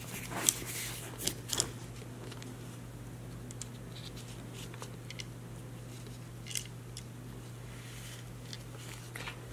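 Small metallic clicks and scrapes of a nut driver working the ground lug nut off a winch solenoid terminal: a few sharp ticks in the first two seconds, then only occasional light ticks, over a steady low hum.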